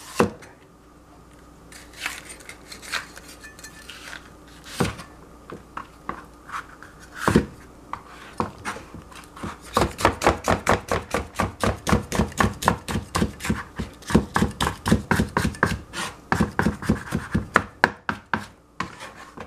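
Cleaver-style knife chopping a yellow bell pepper on a plastic cutting board. A few scattered knocks of the blade on the board at first, then from about halfway a quick, steady run of chops, several a second, as the pepper is cut into thin strips.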